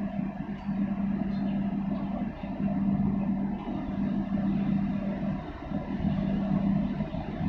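Container ship's engine giving a low, steady drone as the ship passes, over a broad rumble; the hum drops out briefly a few times.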